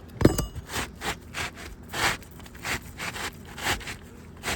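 A new asphalt roof shingle being worked into place under the course above: repeated scraping strokes, about two a second, with one sharp metallic clink near the start.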